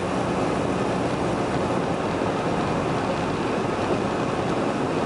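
Steady cabin noise of an old pickup truck cruising along a highway, heard from inside the cab: tyres on the road and the engine running at a constant speed.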